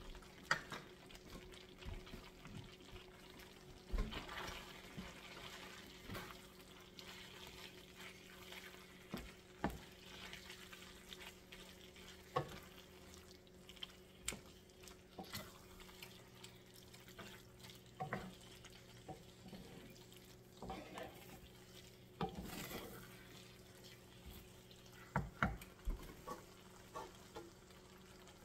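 Wooden spoon stirring and turning fettuccine in cream sauce in an enameled cast-iron Le Creuset skillet, with irregular knocks and scrapes against the pan. A faint steady hum runs underneath.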